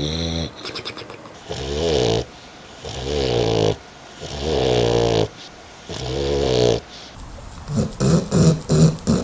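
A sleeping dog snoring: about four pitched, wavering snores, each roughly a second long, with short pauses between, then a run of short quick breaths near the end.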